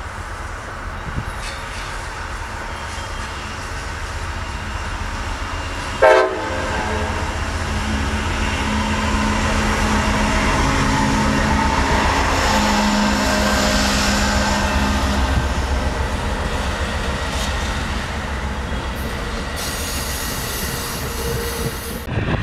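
Bilevel Superliner passenger cars of a train rolling past, a steady rumble and clatter of wheels on the rails that swells toward the middle. About six seconds in there is one short, loud burst of several tones together.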